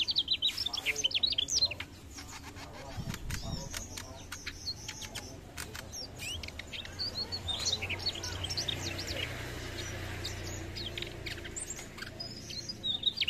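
Male mugimaki flycatcher singing rapid runs of high chirps and trills, in a burst at the start and again from about six seconds in, with sharp clicks scattered between.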